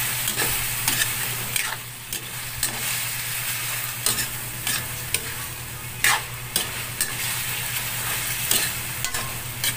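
Chicken pieces sizzling in hot oil in a metal wok while being sautéed, with a metal spatula stirring and scraping against the pan every half second to a second.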